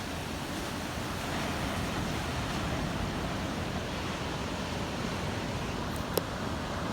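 Ocean surf: a steady wash of big breaking waves, with one short sharp click about six seconds in.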